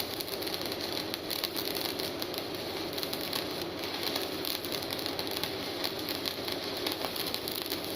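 Electric welding arc crackling steadily as a bead is run joining steel plate to rebar.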